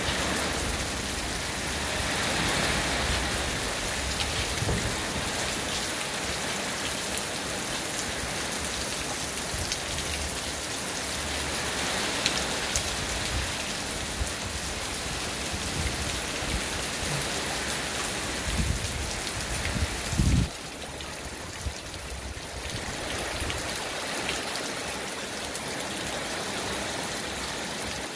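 Steady rain falling, with single drops ticking close by. A dull low thump about twenty seconds in.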